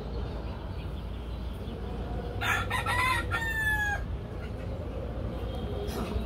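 A rooster crowing once, about a second and a half long, rising and then held on a long, slightly falling note, over a steady low background rumble.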